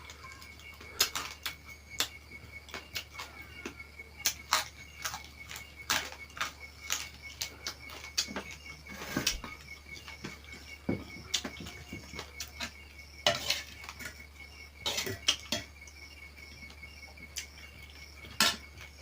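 Cutlery and dishes clinking and knocking irregularly, as at a meal, over a steady, finely pulsing high tone.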